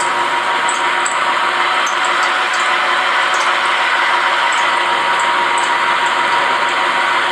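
Vertical milling machine running steadily, its end mill cutting the fluted body of a Remington 700 rifle bolt held between a chuck and a tailstock centre, with a few faint high ticks over the steady machining noise.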